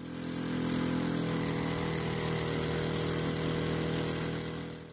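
Mud-Skipper longtail mud motor on a jon boat running at a steady throttle under way, a constant engine drone heard right beside the motor. It fades in at the start and fades out near the end.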